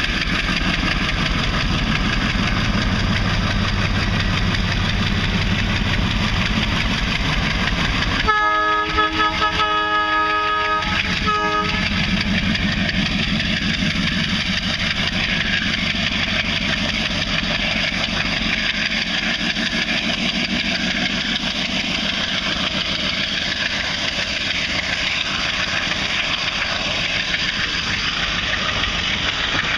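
Diesel locomotive engine running hard under load as it pulls a train, a steady heavy throb. About eight seconds in, the locomotive's horn sounds one long blast, followed by a short one.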